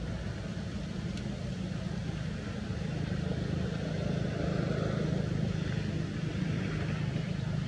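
A motor running steadily with a low drone that grows a little louder in the middle.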